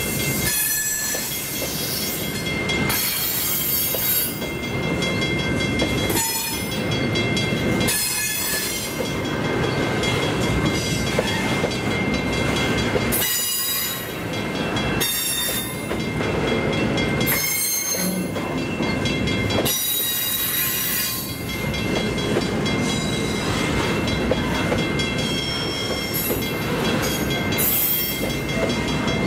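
Garbage container freight wagons rolling past close by: a steady rumble of wheels on rail that swells and dips every one to two seconds as each wagon goes by, with thin steady high tones over it.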